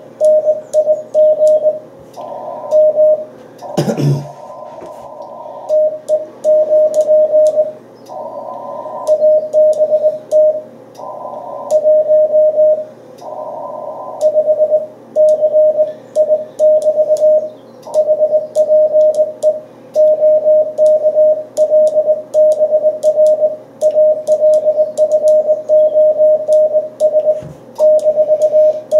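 Morse code from an amateur radio transceiver in a CW contact: a single steady pitch keyed on and off in quick dots and dashes, with short patches of band hiss between some characters. A dull knock about four seconds in.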